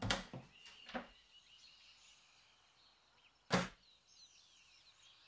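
A door being opened, with short clicks and knocks of its handle and latch in the first second, then one sharp thud about three and a half seconds in. Faint birds chirp in the background.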